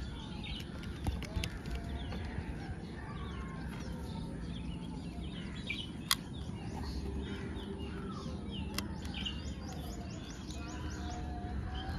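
Small birds chirping in many short, quick calls over a low steady background rumble, with a couple of sharp clicks partway through.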